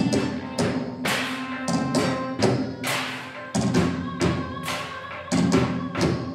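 Live improvised percussion: sticks striking found objects and a hard case in an uneven rhythm of sharp knocks, over steady held pitched notes.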